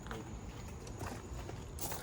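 Footsteps on a hard surface: a few irregular steps over a steady low hum.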